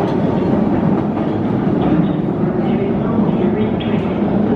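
Vienna U-Bahn metro train running past the platform in an underground station: a loud, steady rumble of wheels on rails.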